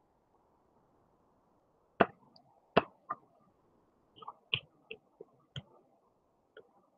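About ten sharp, irregularly spaced clicks and taps over a faint hiss, beginning about two seconds in; the first two are the loudest.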